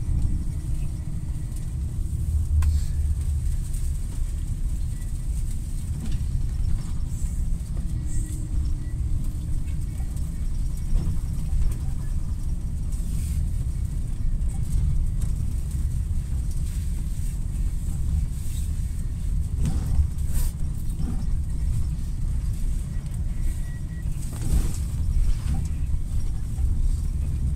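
Blizzard wind buffeting the microphone: a steady, gusty low rumble.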